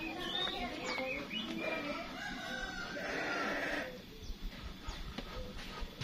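Birds calling: a run of short clucks and chirps, then a harsher call lasting about a second a little past the middle.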